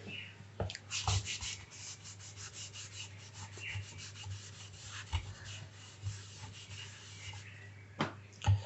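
A pen drawing a diagram: quick scratchy strokes, several a second, with a few sharper taps of the pen tip, the loudest near the end.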